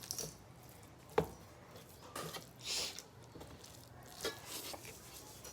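Quiet sounds of eating by hand: rice and mashed eggplant being mixed and eaten, with soft squishing and mouth noises. A sharp tap about a second in.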